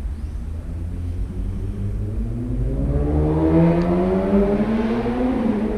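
A motor vehicle's engine accelerating nearby, its pitch climbing steadily over a few seconds and loudest near the end, over a constant low rumble.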